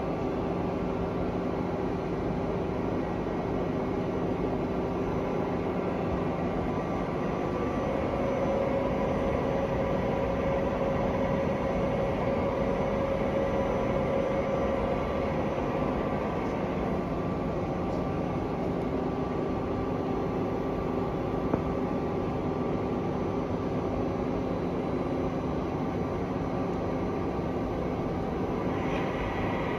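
Mori Seiki ZT 2500Y twin-spindle CNC lathe running: a steady machine hum with several held tones. A higher tone comes in about eight seconds in and drops out around sixteen seconds, and a higher-pitched whine starts near the end.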